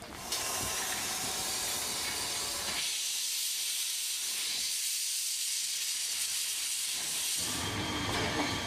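Small 1899 SLM Winterthur steam tank locomotive venting steam: a steady hiss that starts abruptly just after the beginning and eases off near the end.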